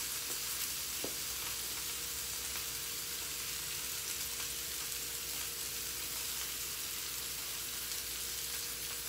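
Turkey wings sizzling steadily as they pan-fry in a hot cast-iron skillet.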